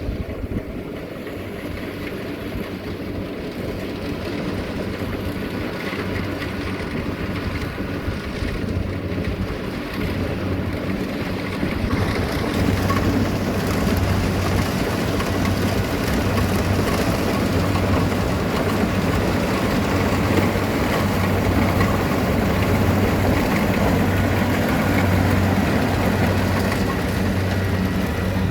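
Kubota DC-70 combine harvester running, with a steady diesel engine hum under a broad machine noise. The noise grows louder about twelve seconds in and stays up.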